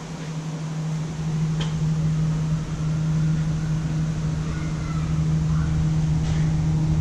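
Steady low machine hum at one constant pitch with a rumble beneath it, growing a little louder over the first couple of seconds; a faint click about one and a half seconds in.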